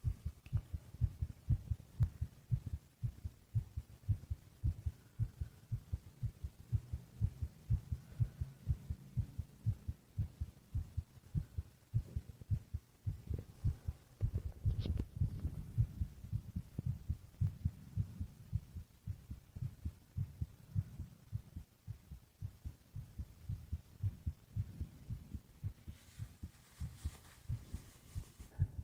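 A person's heartbeat heard close up: a steady rhythm of soft, low thuds.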